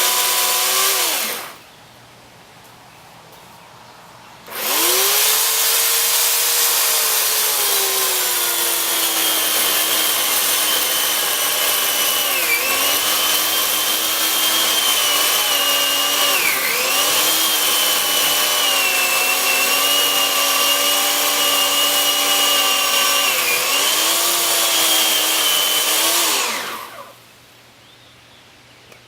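Electric chainsaw cutting the felling notch into a tree trunk. A short burst ends about a second and a half in. After a pause of about three seconds comes a long cut of about twenty seconds. Its pitch drops as the chain bites in and dips a few times under load, then it stops suddenly.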